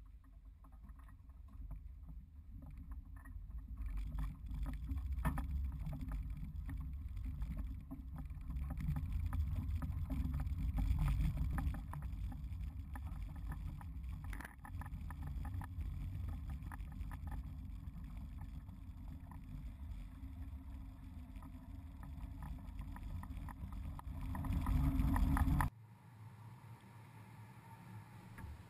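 Low road rumble with frequent small rattles and knocks from a boat trailer being towed, heard close to its wheel. The rumble swells a few seconds in, then cuts off abruptly near the end to a quieter low hum.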